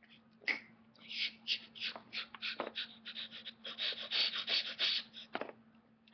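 A child's breathy, hissing mouth sound effects in quick irregular bursts for about five seconds, with a few sharp knocks of plastic action figures being handled.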